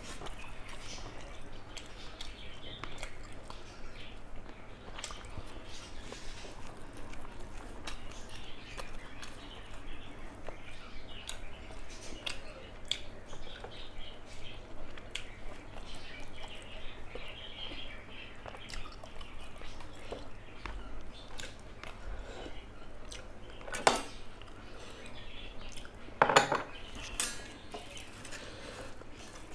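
Eating a rice meal up close: soft chewing and mixing of food with many small clinks of dishware, and two louder clinks of dishes near the end.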